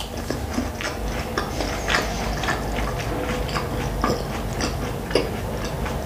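Close-miked chewing of a mouthful of food with the mouth closed: soft, wet mouth clicks and smacks, several a second and irregular.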